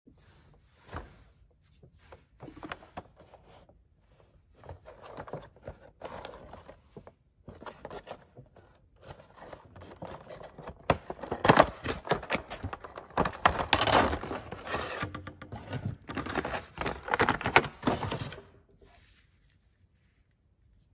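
Cardboard and clear plastic packaging of a Funko Pop vinyl figure being handled and opened: irregular scraping, rustling and small clicks, growing louder through the middle and stopping near the end.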